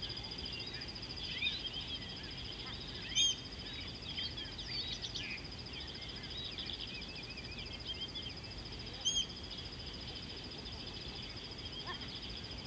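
Natural bush ambience: many small birds chirping over a steady high-pitched insect drone. Two louder short bird calls come about three seconds in and again about nine seconds in.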